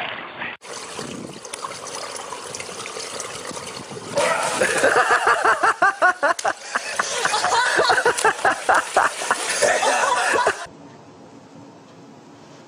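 Water splashing briefly, then a steady outdoor hiss. From about four seconds in, a person laughs hard in rapid bursts for several seconds. Near the end the sound drops to a quiet room hum.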